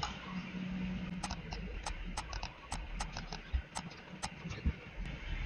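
Irregular clicking of a computer mouse and keyboard, about a dozen sharp clicks spread unevenly over a few seconds.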